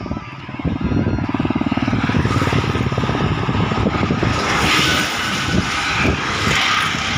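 A bus drives past close by on a bridge, its engine running with a steady fast pulse and a rush of tyres and air that swells as it goes by about halfway through. A three-wheeled auto-rickshaw follows near the end.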